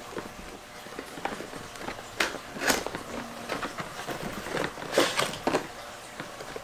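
Rustling and scraping of packaging as a camera box is opened and the camera is lifted out, with a few sharper crinkles about two, two and a half and five seconds in.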